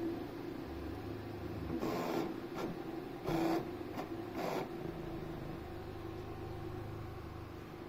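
Custom cross-XY 3D printer running a print: a steady motor and fan hum, with three short, louder rushes of noise about two, three and a half and four and a half seconds in as the print head moves.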